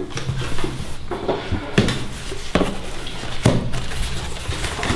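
Cardboard box being torn open by hand: flaps and packing tape ripping and rustling, with a few sharp cracks of cardboard.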